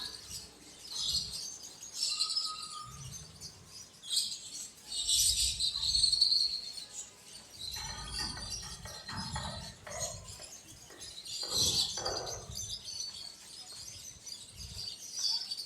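Birds chirping repeatedly in short high calls, with scattered low thuds and rustling.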